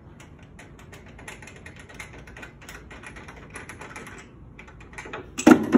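Light plastic clicking and rattling as the hand-tightened door knobs on a Taylor C712 soft-serve machine's freezer door are unscrewed, with a louder clatter near the end.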